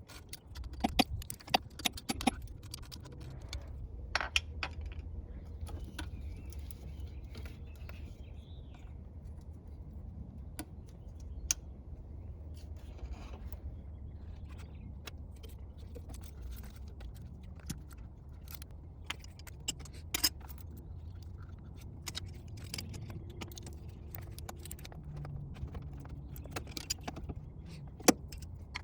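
Scattered metallic clinks and clicks of hand tools and engine parts being handled as hoses, clamps and connectors are refitted to an intake manifold, over a steady low hum.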